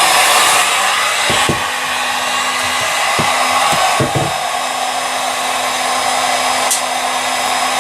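Heat gun blowing steadily, with a faint steady hum under the air noise, as it heats a seized plug. A few soft knocks come in the first half.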